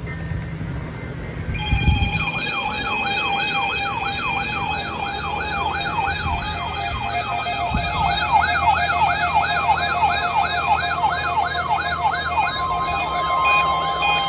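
Weather radio weekly test alert signal. Several electronic alarm tones sound together: one warbles up and down about twice a second like a siren, over steady high tones. A further steady tone joins near the end.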